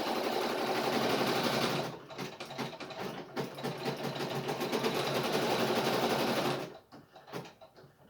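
Brother NV880E embroidery machine's needle and bobbin mechanism running after a drop of oil on its bearing: a steady run for about two seconds, then a fast train of separate strokes that stops about a second before the end.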